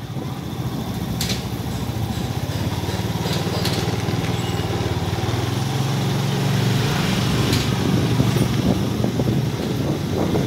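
Small motorbike engine running steadily at low speed, its note rising a little about two-thirds of the way through.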